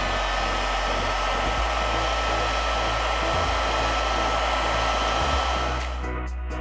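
Heat gun blowing hot air: a steady rush of air with a fan whine, cutting off near the end. Background music with a regular beat comes through as it stops.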